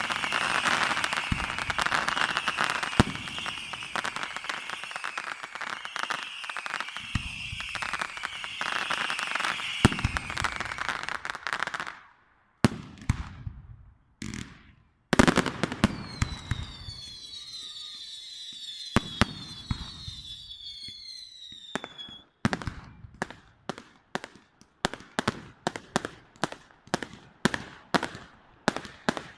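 Fireworks display: dense crackling with repeated short falling whistles for the first dozen seconds, then a few high falling whistles together, and near the end a quick run of sharp bangs, about three a second.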